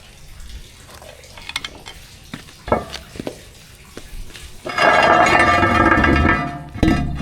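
Metal clinking and knocking, then a loud rasping metallic scrape lasting about two seconds, and another knock near the end.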